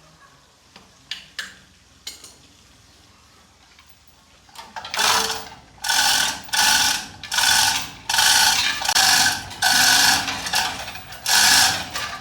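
Ratchet wrench worked back and forth in about seven quick strokes, each a half-second run of clicking, after a few single clicks.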